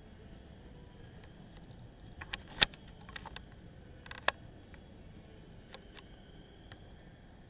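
Quiet room tone broken by a handful of sharp clicks and taps, bunched between about two and four and a half seconds in, one much louder than the rest, with a few fainter ticks later.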